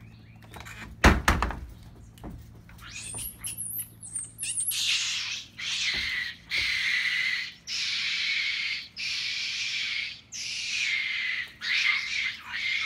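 Outdoor wildlife calls. A couple of thumps about a second in, then high chirps, then from about five seconds a buzzing call repeating in bouts of about a second with short gaps.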